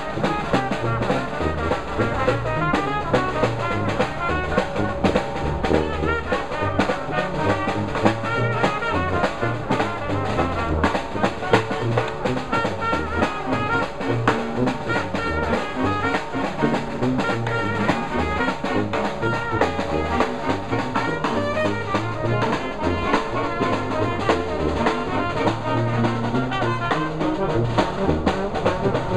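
New Orleans-style brass band playing jazz: a sousaphone bass line and a snare drum under trombone and saxophone lines, running continuously with a steady beat.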